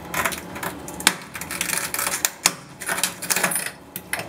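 Razor blade cutting and scraping silicone seams on aquarium glass: a run of irregular sharp clicks and short scrapes.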